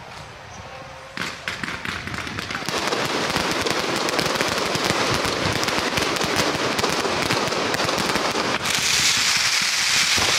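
Firecrackers going off: a few scattered cracks, then from about three seconds in a dense, rapid crackle of many small bangs that grows louder near the end.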